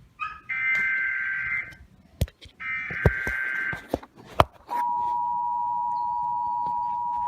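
Emergency Alert System SAME header tones from a NOAA Weather Radio broadcast, announcing a severe thunderstorm warning: two one-second data tones with a pause between and a few sharp clicks. About four and a half seconds in, the steady two-tone attention signal starts and holds.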